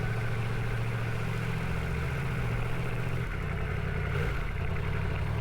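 Yamaha MT-10's crossplane inline-four running steadily at low revs, with a slight change in pitch about three seconds in.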